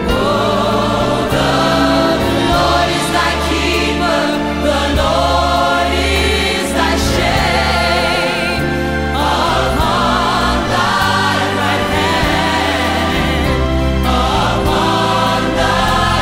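Background music: a choir singing a slow sacred song over sustained instrumental accompaniment, the voices wavering with vibrato.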